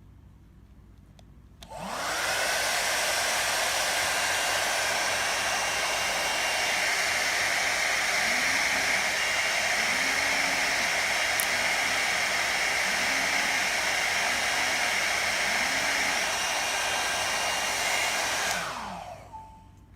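Hot air brush (hair dryer brush) switched on about two seconds in, running steadily with a rushing blow and motor whine, then switched off near the end as the motor winds down.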